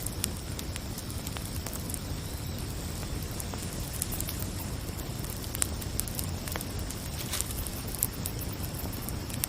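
Wood fire crackling, with scattered sharp pops over a low steady rumble, and a steady high chirring of crickets.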